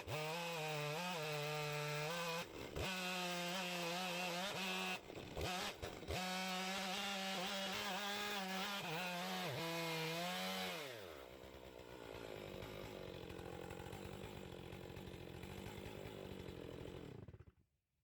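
Stihl chainsaw on an Alaskan chainsaw mill running at high revs through oak, its pitch wavering under load, with a few brief breaks. About ten seconds in the revs fall away to a quieter, steadier running, which cuts off abruptly near the end.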